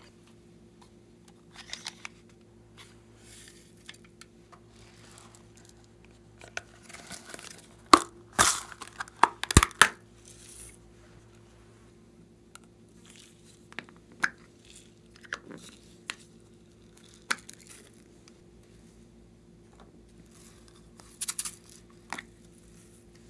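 Hands handling small plastic slime tubs and lids: scattered clicks, knocks and crinkles of plastic, with a dense run of sharp clicks about eight to ten seconds in, over a faint steady hum.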